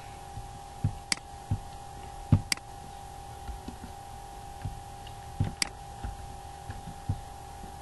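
A few computer mouse clicks and soft knocks, scattered and separate, over a faint steady electrical hum.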